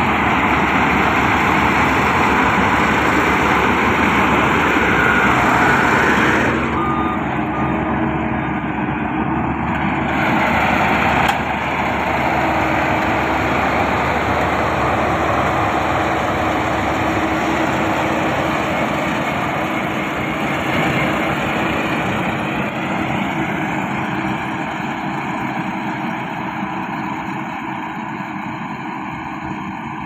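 Changfa CF608 half-feed tracked rice combine harvester running steadily under load, its engine and harvesting machinery blending into one loud mechanical noise. The noise grows slowly fainter over the last ten seconds as the machine moves away down the row.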